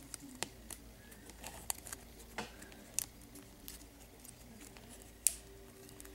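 Soft handling clicks and rubbing as fingers stretch and wind a rubber hair band onto a wooden clothespin: scattered light ticks, with one sharper click about five seconds in.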